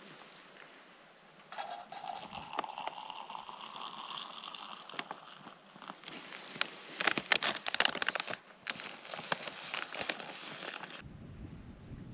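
Hot water poured from a metal pot, its pitch rising steadily over a few seconds as the vessel fills, followed by the crinkling and rustling of a plastic zip-lock food bag. Near the end the sound switches to wind buffeting the microphone.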